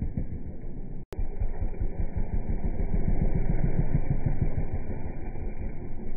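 Husqvarna 300 TPi two-stroke enduro motorcycle engine running. About a second in, the sound cuts out for an instant and then carries on.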